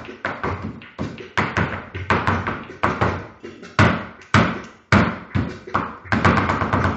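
Flamenco shoes striking the floor in zapateado footwork, the escobilla section of a flamenco dance: sharp heel and toe stamps in an uneven rhythm, breaking into a rapid run of strikes about six seconds in.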